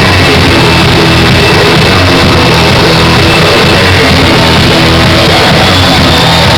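Loud performance music, overloaded and distorted in the recording, playing without a break.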